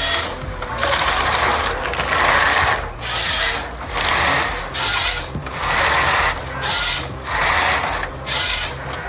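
Motorised saw cutting in short, harsh repeated bursts, about one a second, with a faint steady machine whine underneath.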